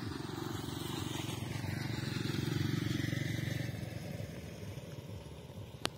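Small boat engine running steadily with a fast, even chugging that swells a little about two to three seconds in. A single sharp click comes near the end.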